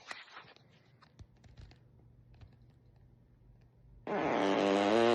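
A man farting: after a few seconds of faint rustling, a loud, long buzzing fart starts about four seconds in, its pitch wavering as it goes.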